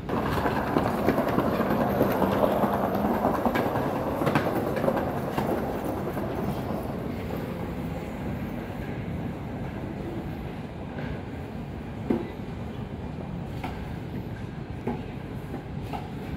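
Rubber-tyred airport people-mover train running along its guideway into the station: a loud rush of the running gear with a low hum, loudest for the first few seconds and then easing off as it slows, with a few light knocks later.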